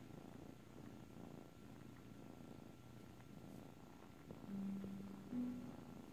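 A black kitten purring steadily close to the microphone, a soft continuous low rumble. About four and a half seconds in, a short steady low tone briefly sounds over the purr.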